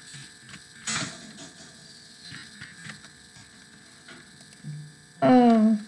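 A 3x3 Rubik's Cube being turned by hand: light, irregular plastic clicks and rattles over a steady electrical hum. Near the end comes a short, loud vocal sound that falls in pitch.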